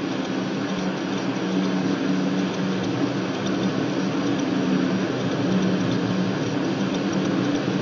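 Steady droning hum under an even rushing hiss: the continuous background noise of the recording room, like a fan or air conditioner running. No other events stand out.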